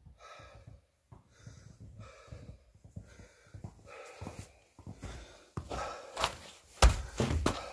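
A man breathing heavily in and out about once a second. Near the end come several sharp, loud knocks and rustles as a gloved hand handles the recording phone close to its microphone.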